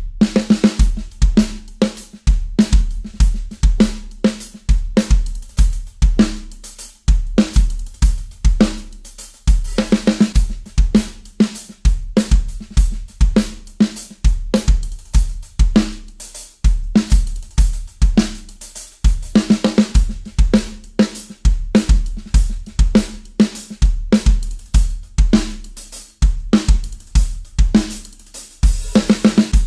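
Acoustic drum kit played in a steady rock groove: deep kick-drum beats, snare hits and hi-hat, with cymbal crashes. It starts suddenly.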